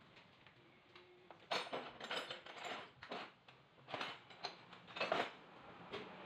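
A run of sharp mechanical clicks and knocks in short uneven clusters, starting about a second and a half in and stopping a little after five seconds.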